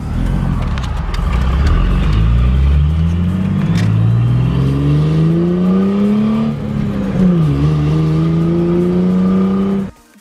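2000 Ford Mustang engine accelerating, its pitch climbing, falling back at an upshift about four seconds in and again about seven seconds in, then holding steady while cruising. The sound cuts off suddenly near the end.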